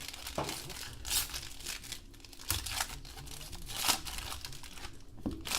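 Crinkly card packaging rustling and crackling as a pack of trading cards is unwrapped and the cards are handled, with several sharper crackles.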